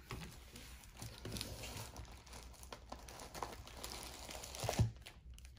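Faint crinkling and rustling of trading-card pack wrappers being handled, with small clicks and a sharper knock a little before the end.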